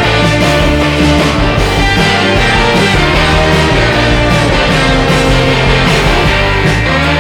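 Background rock music with guitar, loud and continuous.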